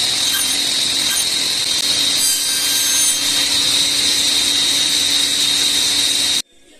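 Power tool cutting wood with a steady high-pitched whine, cutting off suddenly near the end.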